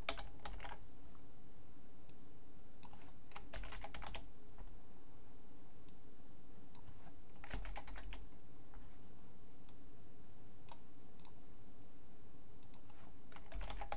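Typing on a computer keyboard in short bursts of key clicks with pauses between them, over a steady low hum.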